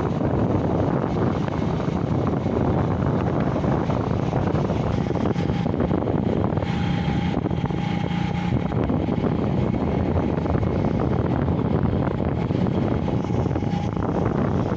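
Wind blowing across the microphone, a steady low rumble, with a faint humming tone through the middle.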